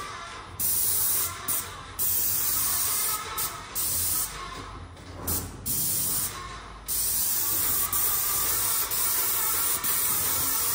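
Small handheld paint sprayer spraying paint onto a wall: a loud hiss that stops briefly several times as the trigger is released, with a longer pause about halfway, then runs steadily from about two-thirds of the way in.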